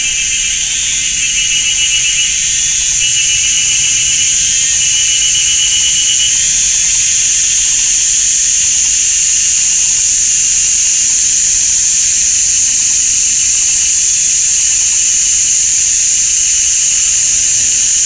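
Cicadas calling in chorus, a very loud, steady, shrill buzz. A second, lower, pulsing call sounds along with it for the first several seconds and then fades.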